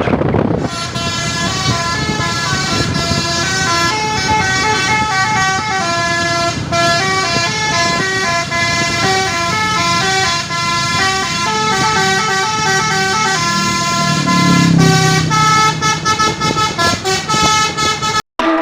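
Bus 'telolet' musical horn (Marro type) playing a melody of stepped, held notes, over a low background rumble. It cuts off suddenly near the end.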